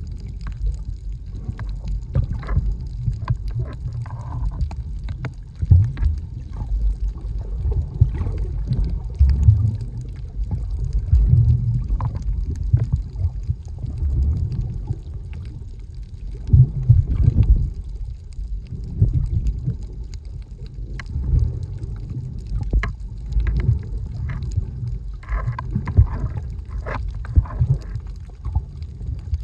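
Muffled underwater sound picked up by a camera held below the surface: a steady low rumble of moving water with irregular sloshing and bubbling swells and small scattered clicks.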